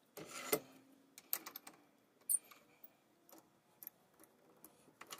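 Small clicks and a brief scrape of metal pen parts being handled on a wood lathe as the pen body is fitted between the lathe bushings, with a scraping rustle near the start and a sharper click about two seconds in.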